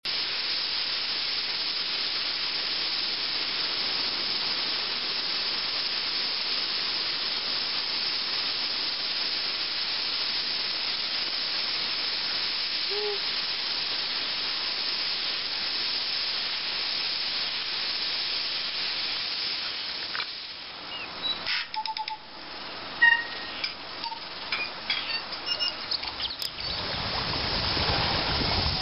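Steady, hissing seaside ambience with a few short bird chirps and calls scattered through it, mostly in the last several seconds. Near the end a lower rushing noise takes over.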